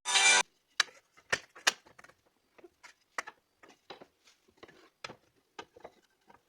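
A short loud scrape or rustle at the start, then a run of irregular light clicks and taps, two or three a second, like small objects or a tool being handled.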